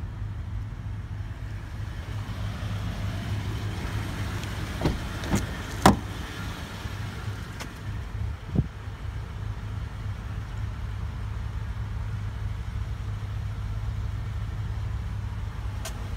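A steady low machine hum, with four sharp knocks between about five and nine seconds in, the third the loudest.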